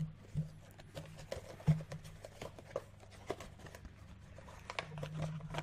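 A Heroclix miniatures booster pack being handled and opened by hand: scattered small clicks and light rustling of its cardboard and plastic packaging, the sharpest click a little under two seconds in, over a steady low hum.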